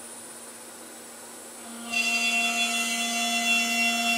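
Electric spindle of a CNC wood lathe running at a steady pitch with its bit at a turned wooden leg: a steady whine with a buzz, faint at first, then suddenly much louder about two seconds in.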